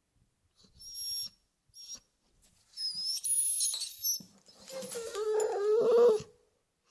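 A dog whimpering in a string of separate high-pitched whines: two short ones, then a longer one. These are followed by a lower, louder drawn-out whine in the second half.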